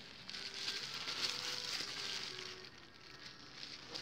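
Pink bubble wrap crackling and rustling as it is unfolded by hand, fading after about two and a half seconds.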